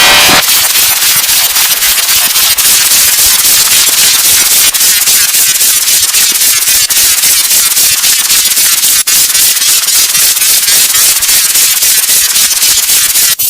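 Harshly distorted, clipped audio from a meme-style effects edit: a loud, dense crackling noise like static, with a few sharper clicks through it.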